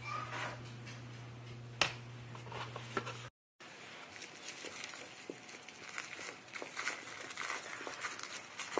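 Flour-and-water sourdough starter stirred in an enamel bowl over a low steady hum, with one sharp clink about two seconds in. After a brief cut, light crinkling and small clicks of plastic cling film as the covered bowl is handled.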